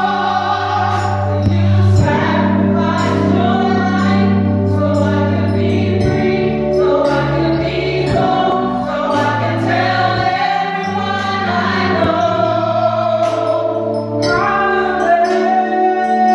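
Gospel music: a choir sings long held notes over a band with bass notes and percussion.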